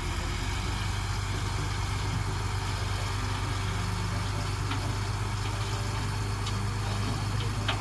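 Sand delivery truck's engine running at a steady idle, a low even hum.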